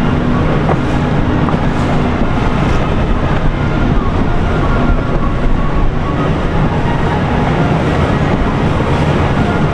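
Boat engines running steadily, a loud, even rumble mixed with the rush of water.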